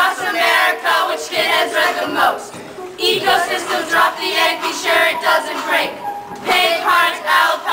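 A group of young voices rapping in unison in short chanted phrases over an instrumental hip-hop backing track.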